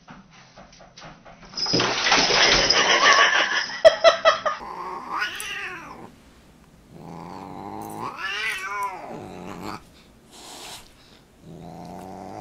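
Siamese cat yowling at a dog in three drawn-out cries, each rising and falling in pitch, the middle one the longest. They are preceded by a loud, rough stretch of noise lasting about three seconds.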